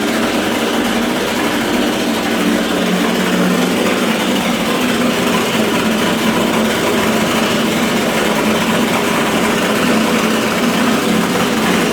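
Steam boiler running loudly: a steady, noisy rumble with a constant low hum, and no separate bangs.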